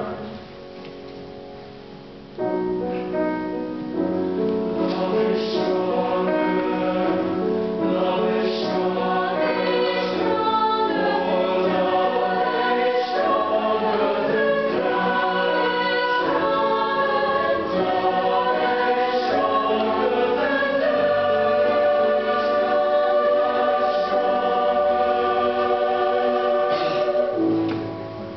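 Mixed chamber choir of women's and men's voices singing a choral anthem in sustained chords. It starts softly, the full choir comes in loudly after about two seconds, and the sound drops away near the end.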